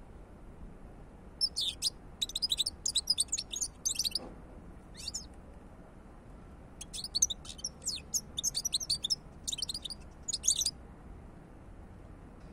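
European goldfinch singing in two runs of quick, high twittering, the first about a second and a half in and the second from about seven seconds, with a single short note between them.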